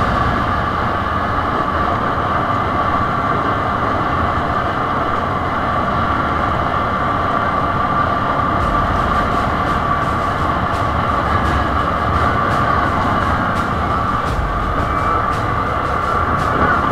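Quad bike (ATV) engine running steadily at riding speed, with a constant whine and the rumble of tyres on a gravel track. From about halfway through, scattered sharp clicks and knocks join in.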